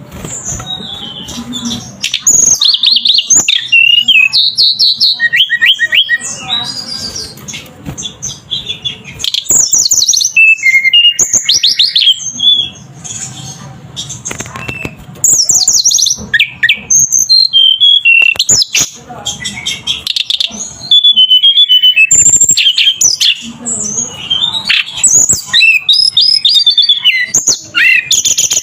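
A tledekan gunung songbird singing in full voice: fast, varied, high-pitched chirping phrases and trills in loud bursts, each a few seconds long, with short pauses between.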